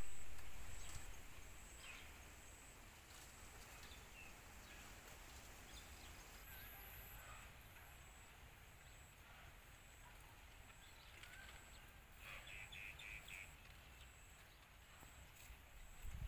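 Faint outdoor countryside ambience with occasional bird chirps, including a short run of quick chirps about twelve seconds in. A louder noise fades away in the first couple of seconds.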